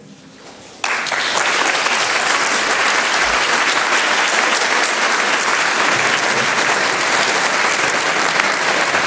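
Audience applauding, starting abruptly about a second in and holding steady.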